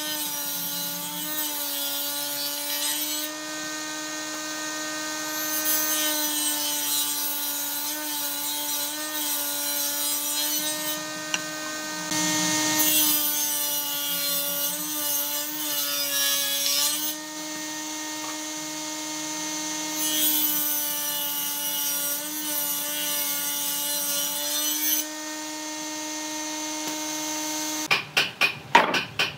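Table saw on a combination woodworking machine running with a steady hum and cutting into a round log, the high hiss of the cut coming and going in four stretches as the log is fed, the hum dipping slightly under load. Near the end a quick run of sharp knocks.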